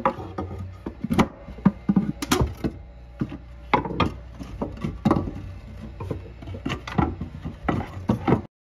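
Irregular knocks, creaks and scrapes of wood on wood as attic floorboards are handled and worked loose, several sharp knocks a second, stopping suddenly near the end.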